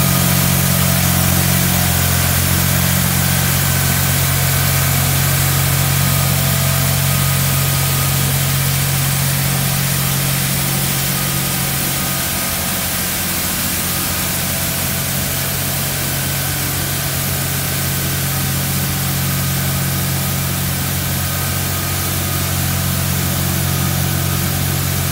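Tractor-towed street sweeper working along the kerb: the engine and sweeper machinery run with a steady low drone, over an even hiss from the rotating side brush scrubbing the asphalt. It eases off slightly as the machine moves away.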